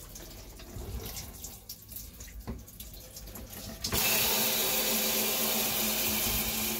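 Hand-held RV shower head running water into a fiberglass tub: a faint trickle on its low-flow setting, then about four seconds in a sudden switch to full spray, a steady loud hiss of water on the tub.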